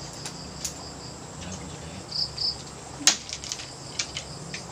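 Insects chirping: a faint steady shrill tone with a few short chirps, broken by a handful of sharp clicks, the loudest about three seconds in.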